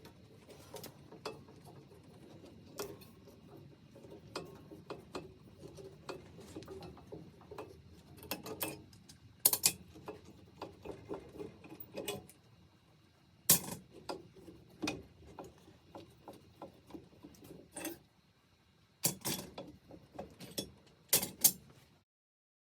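Metal parts of a rusty pipe wrench handled at the workbench: irregular clicks, knocks and rattles, with a few sharp metallic clinks. The sound cuts off just before the end.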